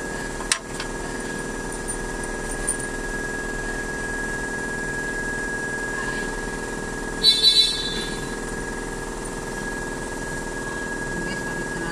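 Steady mechanical hum with a constant high whine, broken by a sharp click about half a second in and a quick run of three metallic clinks about seven seconds in: tools and metal parts being handled while an injection pump is fitted to a diesel engine.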